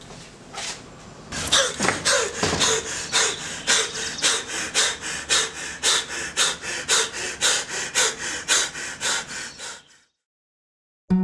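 A man sobbing in a run of rapid, heaving gasps, about three a second, that stop abruptly near the end. A strummed acoustic guitar comes in at the very end.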